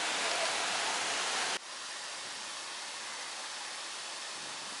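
Steady rush of waterfall water, an even hiss with no distinct events, dropping abruptly to a quieter level about one and a half seconds in.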